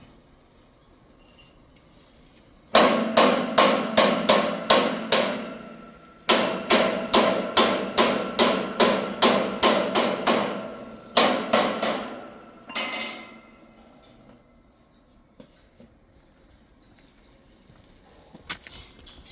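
Hammer striking metal, about three blows a second with a ringing note after each. The blows come in two long runs, then a few more, and stop about 13 seconds in.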